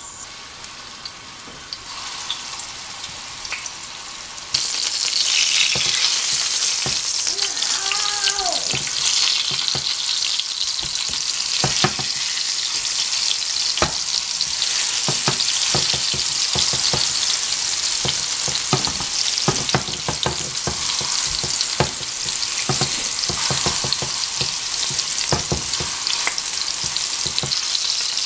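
Chicken and vegetable balls sizzling in shallow vegetable oil in a non-stick frying pan, the sizzle much louder from about four and a half seconds in. A plastic spatula clicks and scrapes against the pan as the balls are turned.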